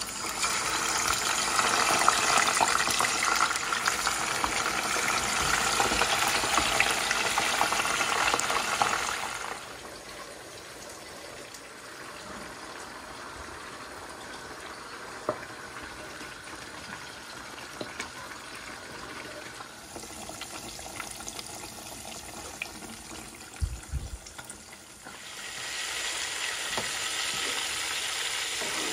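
Fish pieces frying in hot oil in a pot, a steady loud sizzle that stops about nine seconds in. Then a quieter stretch with a few light knocks, until another steady sizzle starts near the end.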